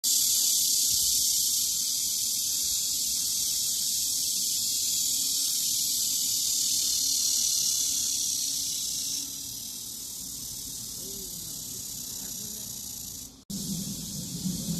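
A chorus of cicadas calling in a steady, high-pitched drone. It drops somewhat in level about nine seconds in and cuts out briefly near the end, after which a low hum is also heard under it.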